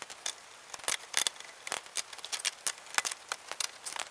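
A breaker bar and socket being handled at the wheel's lug nuts: a string of irregular, sharp metallic clicks and clinks.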